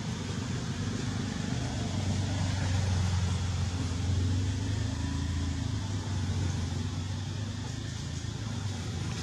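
A low motor-vehicle engine rumble that grows louder over the first few seconds and fades toward the end.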